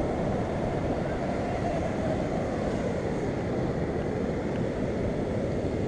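Steady, muffled low rush of sea surf mixed with wind on the microphone.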